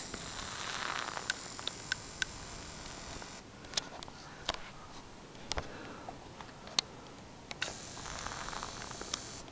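Handling noise: a dozen or so irregular sharp clicks over a faint steady hiss.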